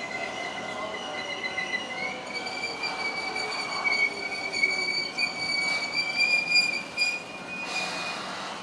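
Keio 8000 series electric train braking into the platform: a steady high-pitched wheel and brake squeal, under it a motor whine falling in pitch as the train slows. A short hiss of air comes near the end as it stops.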